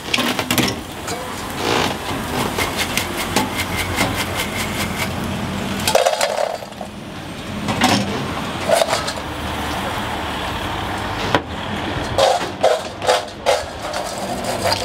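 Snack-stall kitchen work: scattered clicks, knocks and clatter of utensils and containers over a steady background of traffic and equipment noise.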